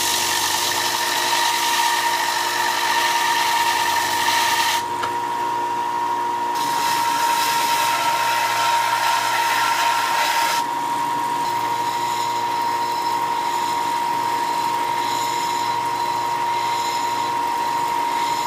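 Ryobi belt sander running with a steady motor whine while the bevel is ground into the edge of a 3/16-inch steel blank. The loud grinding hiss of steel on the belt comes in two long passes, dropping away about five seconds in and again about ten seconds in, with lighter, intermittent contact after that.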